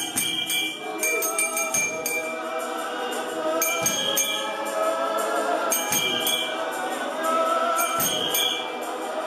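Church youth choir singing a gospel song together in harmony, with short bursts of metallic jingling on the beat about every two seconds.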